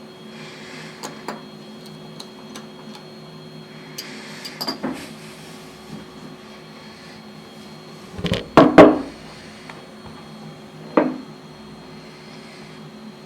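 Steady low machine hum, with scattered clicks and knocks. The loudest is a quick clatter of several knocks about eight and a half seconds in, followed by a single knock a couple of seconds later.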